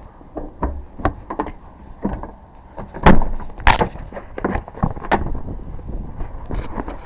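Irregular knocks, clicks and clunks of a locked car door being worked open with locksmith tools, a wedge gap and a reach tool pulling at the inside door handle. The loudest clunks come about three seconds in and again just before four seconds.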